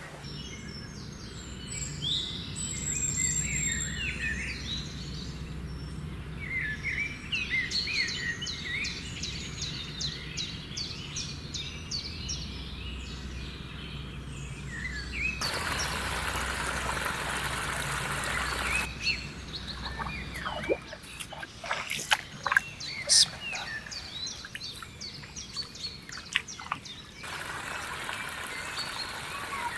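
Small birds chirping and singing in quick repeated calls over a low steady rumble. A few seconds past the middle, an even hiss covers everything, and later come several sharp clicks.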